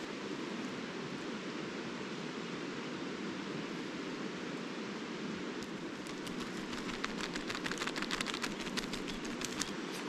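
Steady rushing of a nearby river. From about six seconds in, a quick run of small clicks and rustles sits on top of it.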